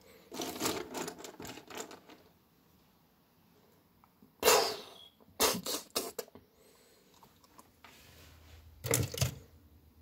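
Loose plastic LEGO pieces clicking and rattling in several short bursts, the loudest about halfway through.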